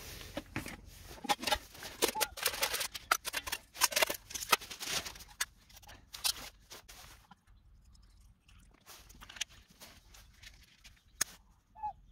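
Clinks and clatter of a Trangia spirit-stove set being taken apart and set up: aluminium pans and lid knocked together, the brass burner and its cap handled, and the burner set down into the perforated windshield base. Busy clattering for the first seven seconds or so, then a few sparser clicks.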